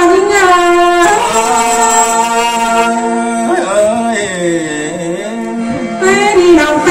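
A woman singing a Thai ethnic folk song (hát Thái) through a microphone, in long held notes that waver and glide in pitch.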